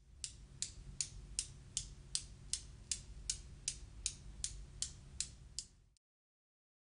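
Steel balls of a Newton's cradle clicking against each other in a steady rhythm, about two and a half clicks a second, over a low hum; it cuts off about six seconds in.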